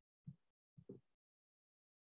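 Near silence, broken by two brief faint low sounds about half a second apart that cut in and out sharply.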